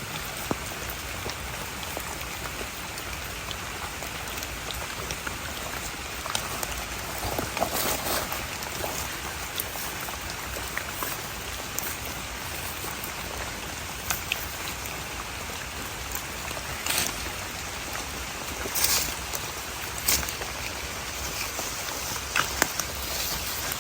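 Steady rain falling, with scattered sharper taps of drops standing out now and then.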